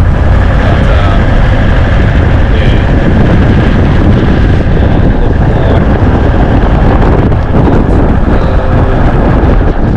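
Loud, steady rumble of wind buffeting the microphone in a rainstorm.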